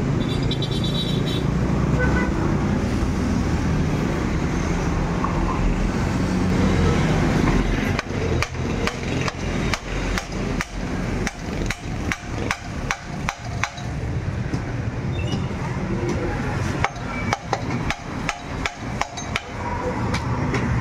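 Hammer strikes on the metal of a Honda CB125 engine crankcase held in a jig, about two a second, with a short ring after each. They start about eight seconds in, pause briefly, and resume for a few seconds near the end. Before the strikes there is only a steady low rumble.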